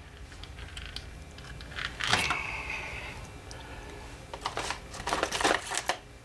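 Light clicks and rattles of small parts and tools being handled on a workbench, with a louder short rush about two seconds in and a quick run of clicks near the end.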